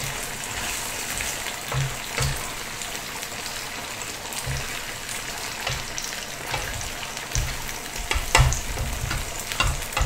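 Egg and starch batter frying in plenty of oil in a non-stick pan, a steady sizzle, with a spatula now and then scraping and tapping the pan as the eggs are broken up.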